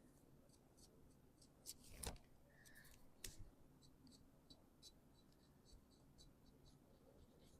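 Near silence with faint small ticks and light handling knocks, two of them louder about two seconds and three seconds in.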